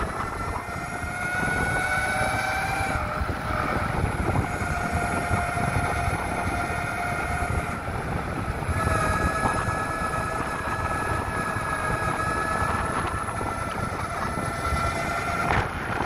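Electric mountainboard's drive motors whining, the pitch rising and falling with speed, over a steady low rumble of the board rolling.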